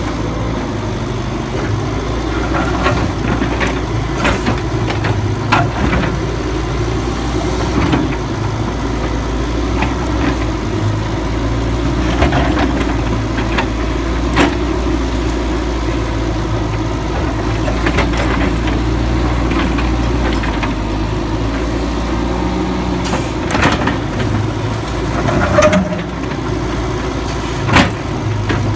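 Liebherr 902 Litronic wheeled excavator's diesel engine running steadily, with scattered sharp clanks and knocks as its steel bucket strikes and scrapes broken concrete and brick rubble.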